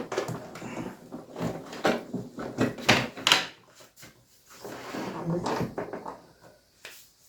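Plastic body of an electronic keyboard being handled and turned over on a bench: a run of knocks, clicks and short scrapes.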